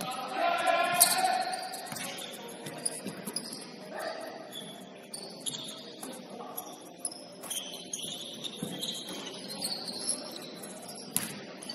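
Basketball players' sneakers squeaking on a hardwood court: many short, high chirps, with a shout in the first second and a few sharp knocks.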